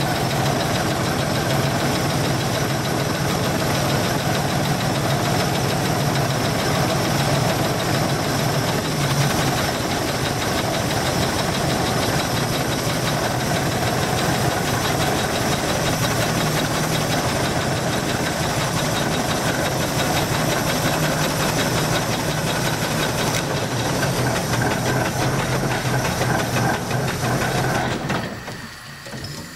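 Steam donkey engine running steadily as it winches in its cable to yard a choked log. It drops off sharply about a second and a half before the end.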